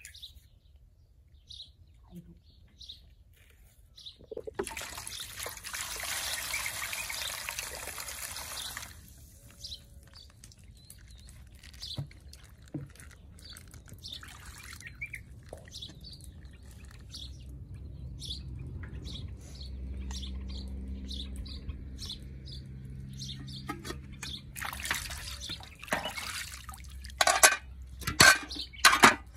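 Water sloshing and splashing as hands wash in a large aluminium basin, with small birds chirping now and then. About five seconds in, water pours for a few seconds, and near the end come several louder splashes.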